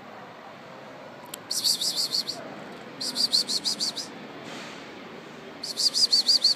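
A bird chirping in three quick bursts of rapid, high, evenly repeated notes, each burst under a second long, over a steady low street hiss.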